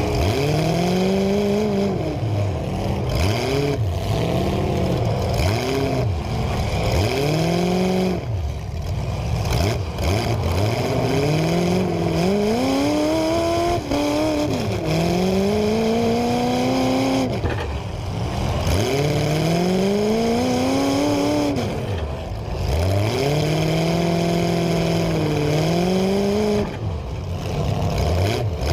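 Demolition derby cars' engines revving up and falling back again and again, several at once and overlapping.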